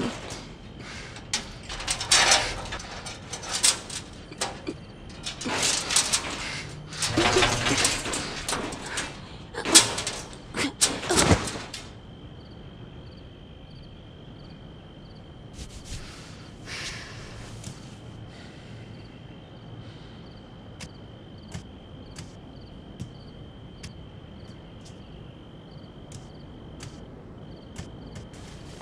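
A wooden gate rattling, knocking and scraping as it is climbed, in loud irregular bursts for about twelve seconds. Then it goes much quieter, leaving a steady high-pitched tone with faint ticks at regular spacing.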